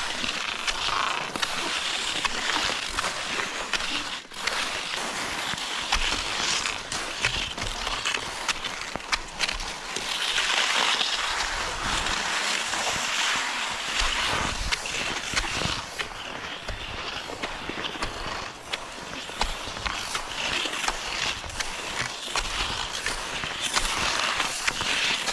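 Cross-country skis sliding and scraping along a groomed snow track: a steady hiss that swells and fades with the strides, with scattered sharp clicks.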